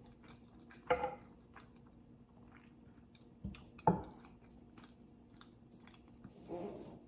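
Close-miked chewing of white rice, beans and stewed beef, with soft wet mouth clicks throughout and a couple of louder clicks about a second in and near four seconds in. A short hummed 'mm' near the end.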